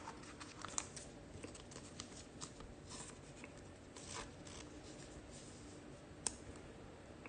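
Faint sliding and clicking of glossy Topps Chrome trading cards being flipped through by hand, with a sharper click about a second in and another near the end.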